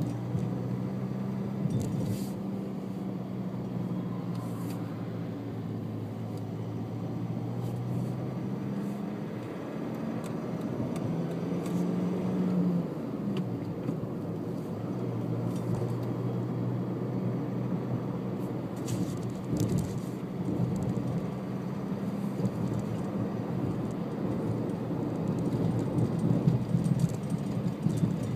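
Car engine and tyre noise from inside a moving car. The steady engine hum rises in pitch about twelve seconds in, drops away for a moment and then returns as driving goes on, with a few faint ticks and rattles.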